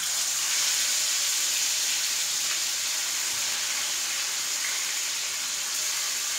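Masala-coated fish frying in hot coconut oil in a pan: a steady, even sizzle as the pieces are laid into the oil.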